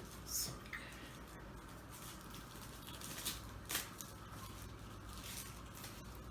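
A fruit roll-up and its plastic backing being handled: faint crinkling and peeling, with a short crinkle about half a second in and two more close together about three and a half seconds in, over a low steady room hum.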